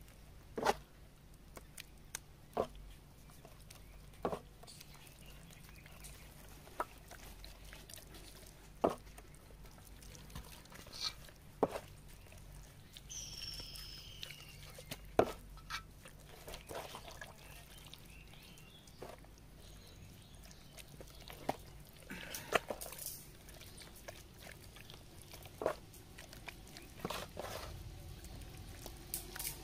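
Hands working a wet masala marinade into chicken pieces: scattered soft squelches and clicks a second or two apart. A bird chirps once about thirteen seconds in.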